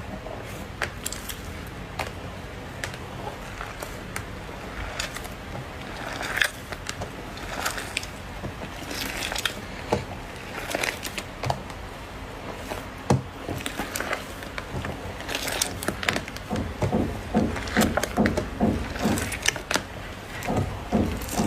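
Slime being squished and pressed by hand, giving irregular sticky clicks and crackling pops that come thicker and louder toward the end.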